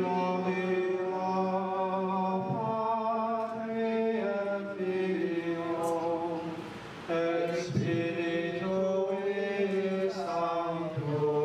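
Congregation singing a slow hymn together between rosary decades, in long held notes sung in phrases a few seconds long with short breaths between them.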